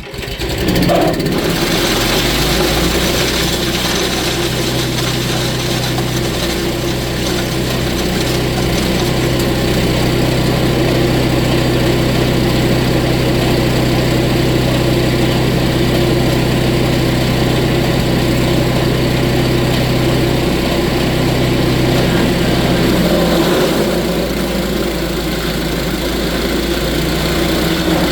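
Small gasoline engine of a belt-driven wood chipper, running steadily after coming in abruptly. Its low note shifts near the end.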